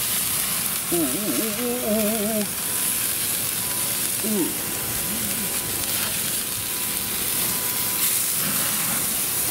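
Cheeseburger patty sizzling on a grill grate over flaring flames: a steady hiss of frying fat. About a second in, a wavering hummed voice sounds over it for a second or so.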